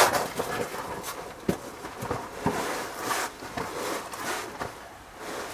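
A brief loud rustle at the start, then footsteps, rustling and scattered light knocks of someone moving about.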